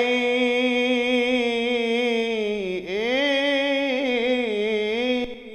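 A man's solo unaccompanied voice chanting an Arabic Husseini elegy. He draws out one word in a long melismatic held note with wavering ornaments, breaking briefly about midway before holding the note again.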